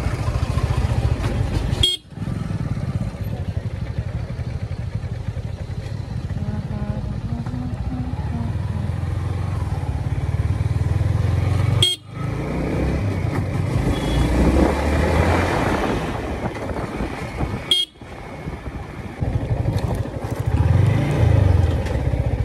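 Yamaha motorcycle engine running as the bike rides through slow town traffic, breaking off abruptly three times. Near the end the engine pitch rises and falls as the bike pulls in to park.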